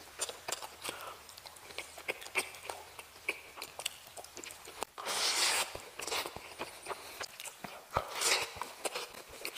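Close-miked eating sounds: fingers mixing rice and meat curry on a plate, and wet chewing and mouth clicks. There are many small clicks throughout, with louder noisy stretches about five seconds in and again about eight seconds in.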